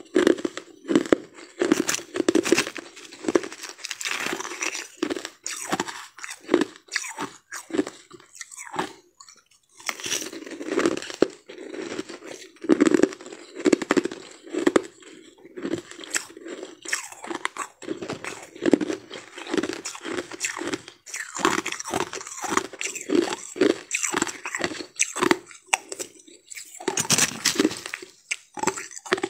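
Crushed ice being bitten and chewed: close, crisp crunches a few times a second, with a brief pause in the middle.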